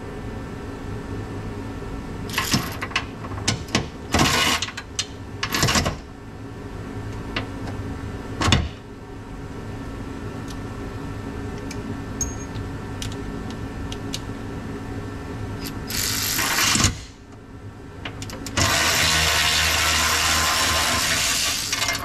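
Power tool running in two bursts while removing bolts: a short one about sixteen seconds in and a longer, loud one in the last few seconds. Before that come scattered clicks and knocks of hand tools and parts over a steady hum.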